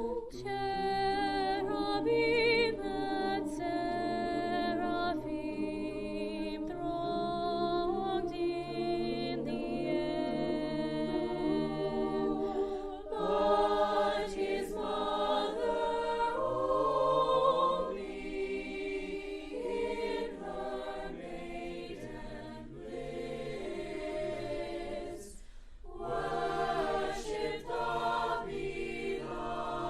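Choir singing sustained, slow chords without words picked out by the recogniser, the voices holding each note with vibrato; the singing thins briefly about halfway and again near the end before resuming.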